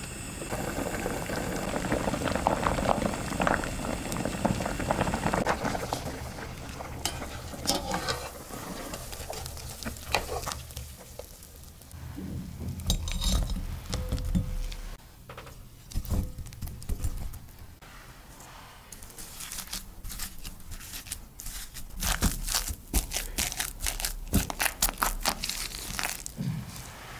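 Water bubbling at a boil around potato chunks in a pot. Then scattered knocks and clinks as the cooked potatoes are scooped out with a wire spider strainer into a glass bowl. Over the last several seconds comes a fast run of strokes as a wire hand masher squashes the potatoes against the bowl.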